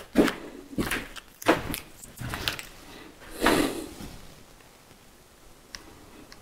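Footsteps and several short knocks as tools are handled on a workbench, then a strip of masking tape pulled off its roll with a brief tearing hiss about three and a half seconds in. A few faint small clicks follow as the tape is wound onto a drill bit.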